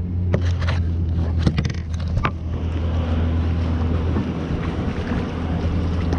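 Kayak being paddled: wind rumbling steadily on the microphone, with a few sharp paddle splashes and knocks in the first couple of seconds.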